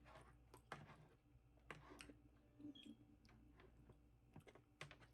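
Near silence broken by faint, scattered clicks: the quiet mouth and food sounds of someone eating.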